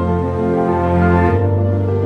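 Background music: a slow instrumental piece of long held notes over a sustained bass, moving to new chords about one and a half seconds in.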